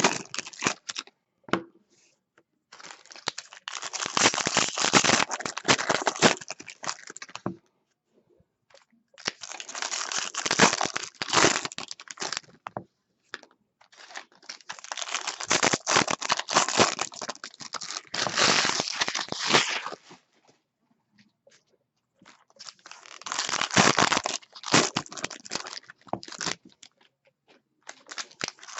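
Trading-card pack wrappers being torn open and crinkled, in four bursts of a few seconds each with short pauses between.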